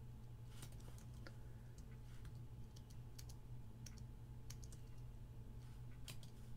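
Computer keyboard keystrokes: scattered, quiet key clicks at an uneven pace while code is typed, over a faint low hum.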